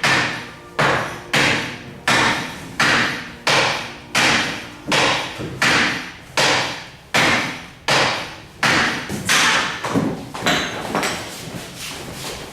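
Repeated sharp knocks at a steady pace of about three every two seconds, each with a short ringing tail, like hammer blows on metal. The blows grow softer and less distinct about ten seconds in.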